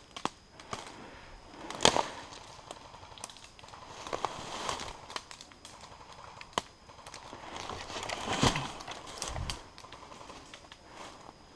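Footsteps crunching through dry fallen leaves and brush, with twigs cracking underfoot at an irregular pace; the sharpest crack comes about two seconds in and the longest rustle around eight seconds in.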